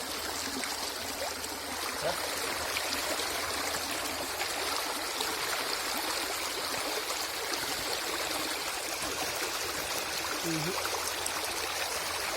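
River water flowing and rushing steadily.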